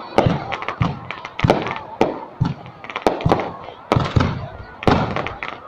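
Fireworks exploding: a rapid, irregular string of loud sharp bangs, several a second, each trailing off into a short echo.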